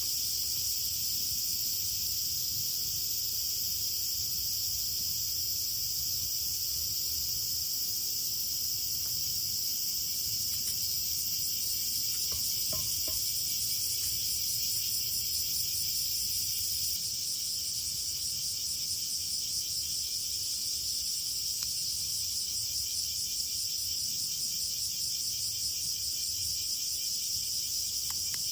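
A steady chorus of chirping insects, high-pitched and continuous, easing off slightly a little past halfway, with a few faint ticks.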